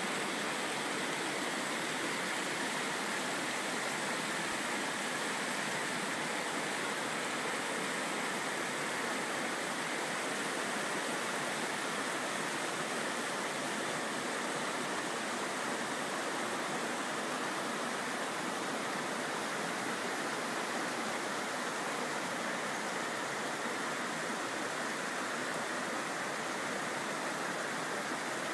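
Creek water rushing over rocks and small cascades, a steady rush that never lets up.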